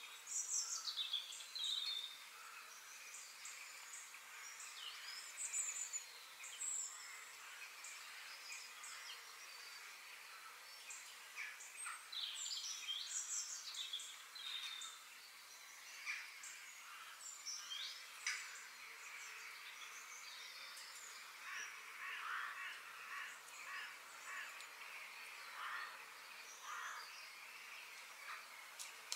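Birds chirping and calling: many short chirps and quick gliding whistles that come and go over a faint steady hiss.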